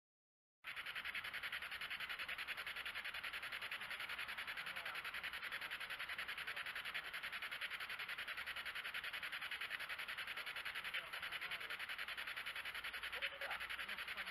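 SB7 spirit box sweeping through radio frequencies: a steady hiss of radio static, chopped evenly several times a second. It starts about half a second in.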